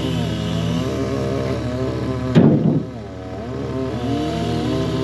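Chainsaws running and cutting firewood, their engine pitch rising and falling as they work under load. A sharp knock comes about two and a half seconds in, and the saws drop lower for a moment before picking up again.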